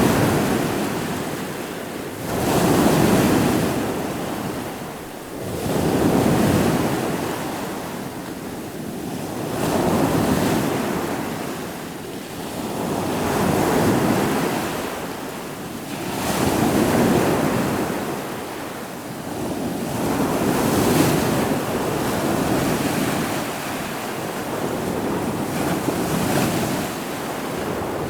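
Ocean surf: waves breaking and washing in one after another, the rush of water swelling and falling away about every three to four seconds.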